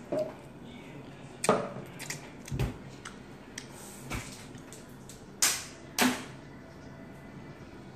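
Eating and drinking noises at a table as cup noodles are eaten and milk is drunk from a glass: a few short, sharp sounds at irregular moments. The two loudest come about half a second apart, after about five seconds.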